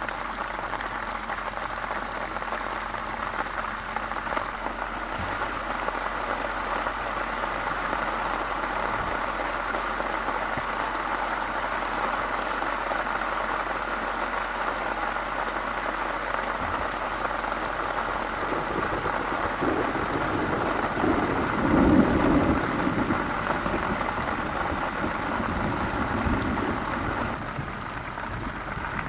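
Heavy rain falling steadily, an even hiss of drops. A low rumble swells in over the last third and is loudest a little past two-thirds of the way through.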